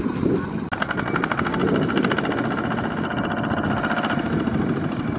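Single-cylinder diesel engine of a two-wheel walking tractor running steadily with a fast, even chug. There is a brief break less than a second in.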